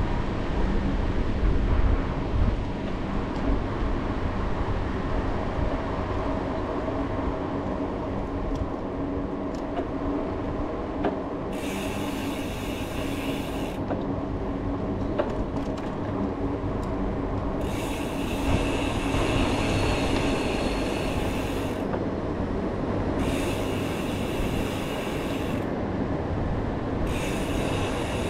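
Bicycle riding along a road at speed: a steady rumble of tyres and wind. Several times a high-pitched buzz comes in for a few seconds and cuts off abruptly.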